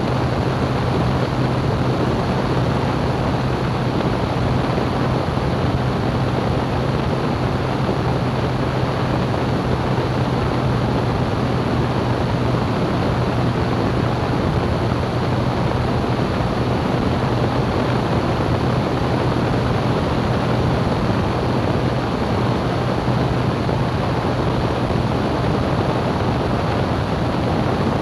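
Light aircraft in flight: a steady engine and propeller drone with a constant low hum under a dense rush of air noise.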